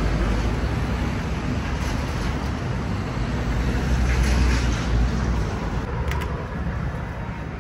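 Steady city street traffic noise, with a low rumble of passing vehicles that swells about four seconds in. About six seconds in comes a couple of sharp clicks as a glass shop door is pulled open by its metal handle.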